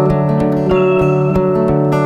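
Acoustic guitar strummed in a steady rhythm, about four strokes a second, its chords ringing between strokes.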